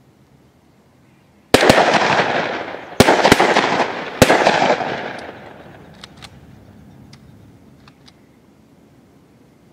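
Shotgun volley: about five blasts in quick succession, each with a long echoing tail, followed by a few faint sharp clicks.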